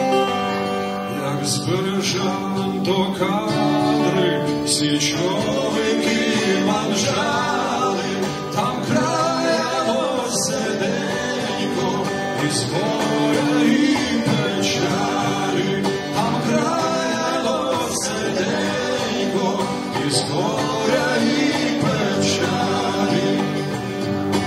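Live song: a man singing to a strummed twelve-string acoustic guitar, with an electric guitar playing alongside.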